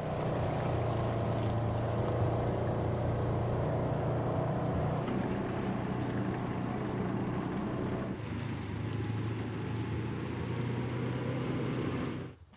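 Car or truck engine and road noise heard from inside the cab while driving, a steady drone that eases somewhat about eight seconds in.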